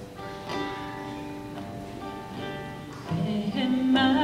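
A guitar picking slow single notes, then voices begin singing a song in Cree over it about three seconds in.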